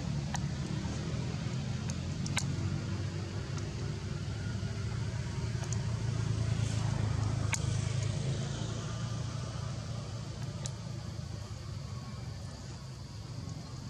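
Steady low rumble of a running motor, with a few faint sharp clicks.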